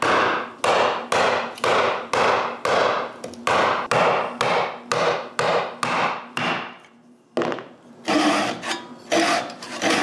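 Hand tools working plywood: a handled steel punch pressed through the holding tabs to free CNC-cut padlock pieces from the sheet, making a rhythmic series of sharp scraping strokes about two a second. The strokes pause briefly about seven seconds in, and near the end a fine-toothed back saw takes over with similar strokes.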